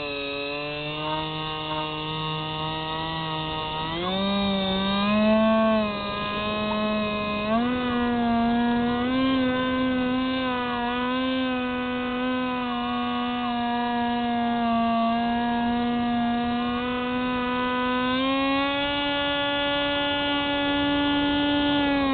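Hubsan Spyhawk FPV plane's electric motor and propeller whining in flight, heard through the onboard camera. It runs at a low pitch for the first few seconds, then the pitch steps up as the throttle opens about four seconds in, again just before eight seconds, and once more near the end.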